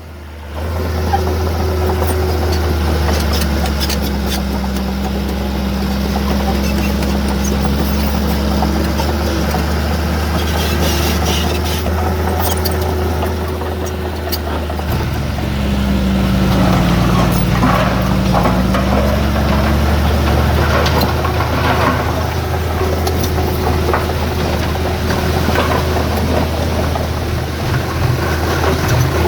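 Heavy diesel engine of earthmoving machinery running steadily under work, its note sagging and recovering about halfway through as it takes load, with scattered metallic clanks.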